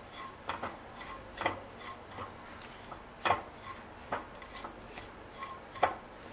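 A spatula scraping and tapping around a nonstick kadhai as it stirs dry desiccated coconut and roasted peanuts, with uneven strokes about every second. There is no sizzle: the gas is off and the coconut is only toasting in the pan's leftover heat.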